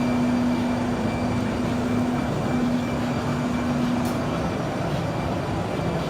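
Steady din of a busy machine-tool exhibition hall, with a machine hum that breaks off a few times and stops about four seconds in, and a single sharp click at about the same point.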